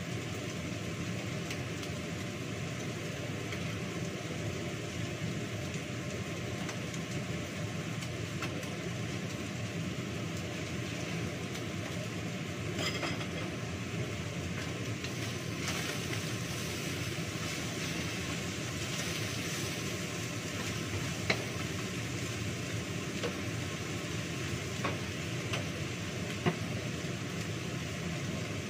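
Steady, even background hiss in a kitchen, with a few light clicks and knocks as vegetables and utensils are handled at the counter; the two sharpest knocks fall about two-thirds of the way through and near the end.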